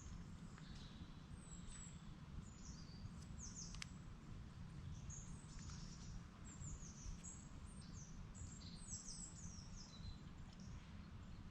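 Wild birds chirping and singing, many short high falling notes scattered throughout, faint over a steady low rumble.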